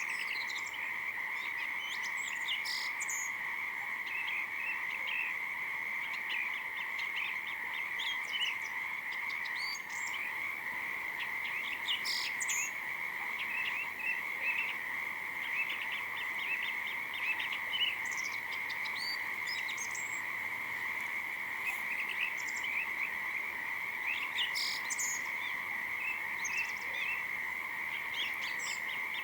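A steady chorus of frogs calling without a break, with scattered short high chirps over it.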